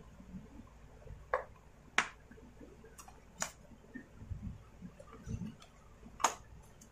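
Hands fitting plastic parts on a Stihl MS250 chainsaw during assembly: about five sharp clicks and snaps, the loudest about two seconds in and near the end, over soft handling rustle.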